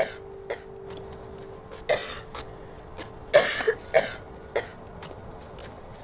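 A young woman crying, with a string of short, sharp sobbing breaths, the loudest a quick cluster about three and a half seconds in, over a steady held tone.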